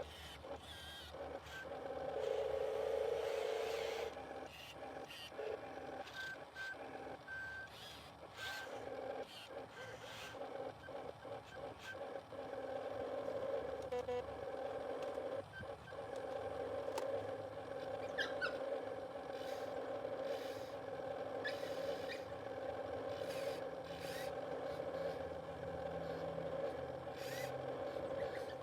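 Small electric motors of radio-controlled model construction machines whining steadily, with scattered clicks and knocks from the working parts.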